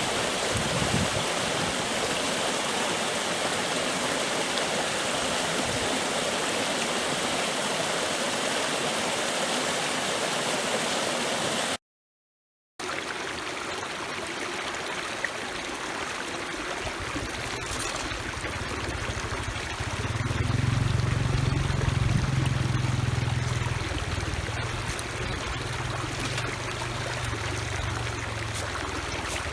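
Steady rush of flowing water, like a stream. It breaks off for about a second near the middle and comes back a little quieter, with a low rumble under it for a few seconds.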